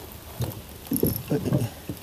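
Spinning reel and tackle handling sounds in a small wooden boat while a hooked snapper is brought in on an ultralight rod: a string of short, irregular mechanical sounds over a steady hiss of rain.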